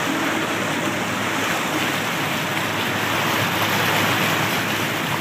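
Motorboat under way towing a tube: a steady rush of churning water from the wake, with the boat's engine humming low and even beneath it.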